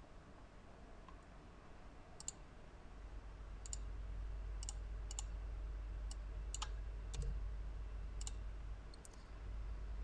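Computer mouse clicking: about ten single clicks, spaced unevenly, over a faint low hum.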